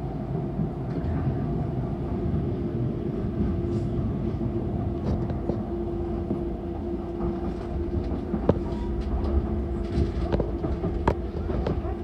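Docklands Light Railway train heard from inside the car while running: a steady low rumble with a steady hum, and sharp clicks and knocks from about eight seconds in.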